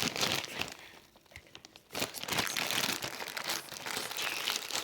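A mail package being torn open by hand and its wrapping crinkled: a burst of tearing and rustling, a short lull about a second in, then steady crinkling handling of the packaging.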